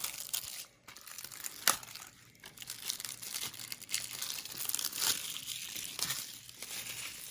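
Plastic wrapping being torn and peeled off a DVD case: irregular crinkling and crackling with a few sharp snaps.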